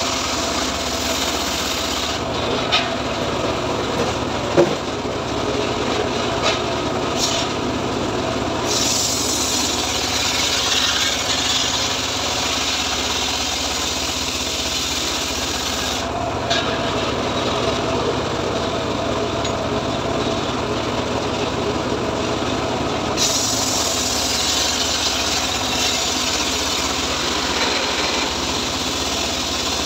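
Engine-driven home-built log saw (gergaji srekel) running steadily while teak logs are fed through it. Its blade cuts through the wood with a brighter hiss from about a third of the way in to about halfway, and again through the last quarter.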